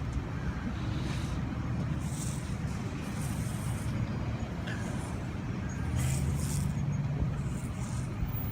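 Steady low rumble of a motor vehicle engine idling, with the hum firming up for about a second past the middle.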